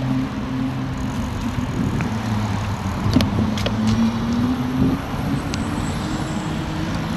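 Road traffic heard from a moving bicycle: nearby car engines running at a low hum that rises gently in pitch in the second half as traffic pulls away, over steady wind and road noise, with a few sharp clicks about three to four seconds in.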